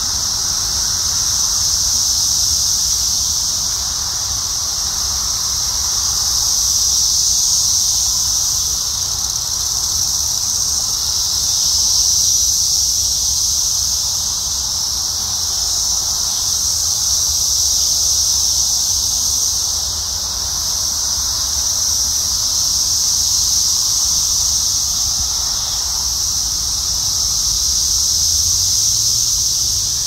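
A dense chorus of Brood X periodical cicadas: a loud, continuous high-pitched buzzing drone that swells and eases in slow waves every few seconds.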